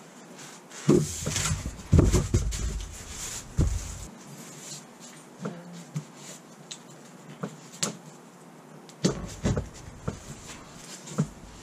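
Handling noise of a stack of rigid foam flotation blocks: a run of thuds and knocks as it is set down on a bench about a second in, scattered light clicks and rustles while it is handled, and another cluster of knocks near the end.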